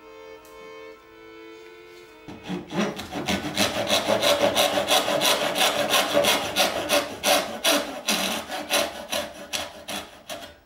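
Brass-backed dovetail saw rip-cutting a white oak drawer board by hand, starting about two seconds in with fast, even strokes at about three a second, and cutting off suddenly near the end. Before the sawing, soft violin music.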